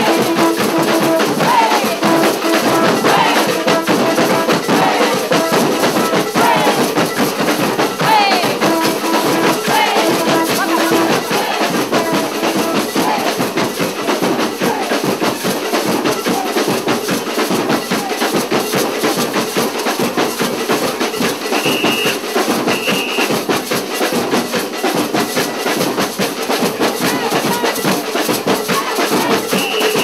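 Live carnival street-band music: shakers and drums keep up a dense, fast rhythm, with a few held pitched notes over it and some short high tones near the end.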